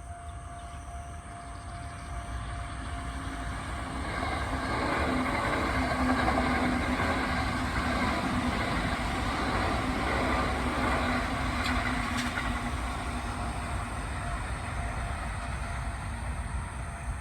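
Kintetsu electric train running past. Its noise builds over a few seconds and then fades slowly, with a low steady hum while it is loudest and two sharp ticks near the middle.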